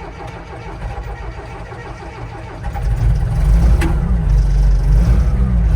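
Payloader's engine running, revving up and getting louder about three seconds in as it works under load.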